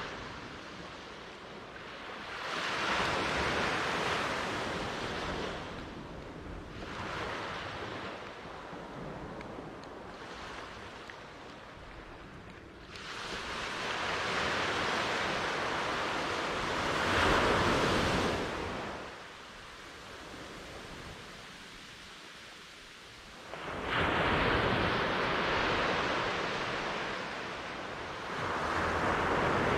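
Ocean surf: waves breaking and washing up in repeated swells of rushing noise with quieter lulls between, about five surges, the longest building through the middle and peaking a little past halfway.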